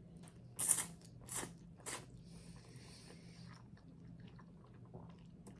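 Close-up eating sounds of crunchy toasted garlic bread: three sharp crunching bites in the first two seconds, then quieter chewing.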